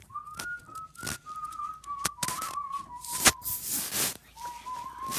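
Someone whistling, a thin wavering tone that steps between a few pitches like a slow tune, breaking off briefly before the last second. Clicks and rustling from the phone being handled, with a sharp knock a little after three seconds.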